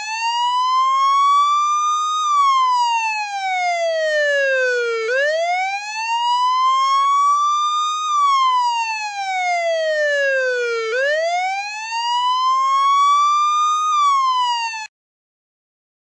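Police car siren on a wail: one tone rising slowly, then falling, over and over about every six seconds. It cuts off suddenly near the end.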